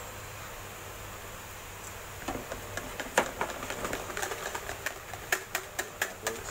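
Wire whisk beating pancake batter in a plastic tub, its wires clicking against the sides in quick strokes that start about two seconds in and grow faster.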